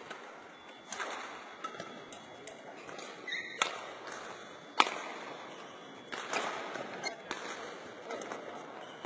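Badminton rackets striking a shuttlecock during a rally: several sharp hits about a second apart, the loudest about five seconds in, with players' footwork on the court floor between strokes.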